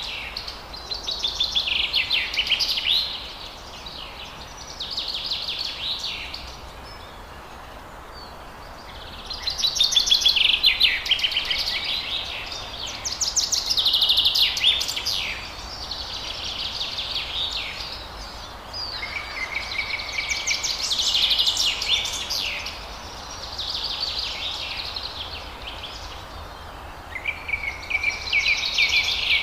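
Forest birds singing: phrases of rapid, high trilled notes, each lasting one to three seconds, repeat every few seconds, some opening with a short held note. A faint, steady background hiss runs beneath them.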